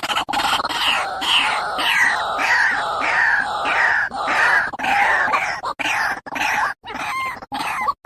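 White-breasted waterhen calling: a loud series of harsh notes, each sliding down in pitch, about two a second, breaking into shorter, spaced calls near the end.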